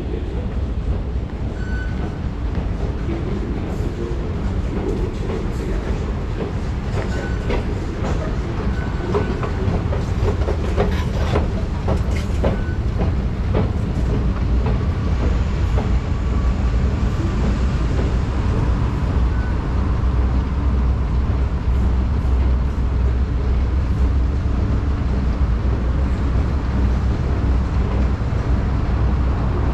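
A long escalator running: a steady low rumble and hum from its drive and moving steps, stronger in the second half. Footsteps and light taps on the hard floor sound in the first half.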